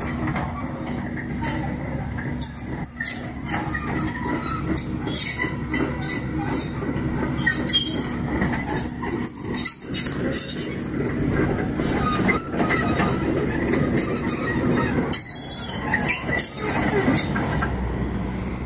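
Hitachi 20-tonne tracked excavator working on a slope, its diesel engine running steadily under load. The steel tracks give high squeals and frequent knocks as it crawls.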